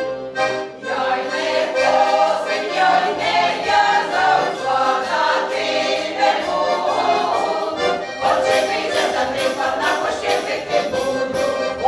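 Women's folk choir singing a Ukrainian folk song together, accompanied by an accordion.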